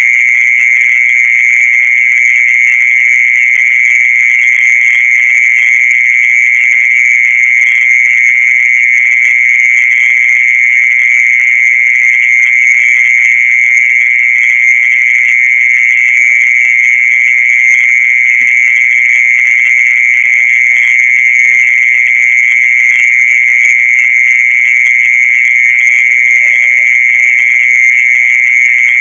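A mole cricket's continuous high-pitched trill, steady and unbroken. This is the night song popularly known in Indonesia as the 'earthworm sound' (suara cacing tanah); earthworms themselves make no such call.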